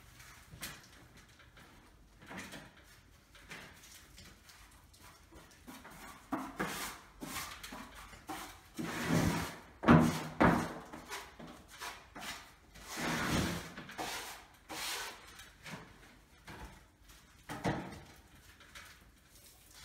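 Rustling and rubbing of a sheet of reinforcing wall-lining veil as gloved hands press and smooth it onto the wall, in irregular strokes, the loudest about halfway through.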